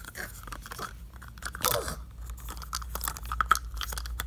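Crinkling and crunching of a plastic wrapper handled close to the microphone: a run of irregular crackles and clicks.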